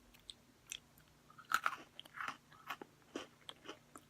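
Close-up chewing of Cherry Cola Oreo sandwich cookies: a few faint mouth clicks, then a run of irregular crisp crunches from about a second and a half in.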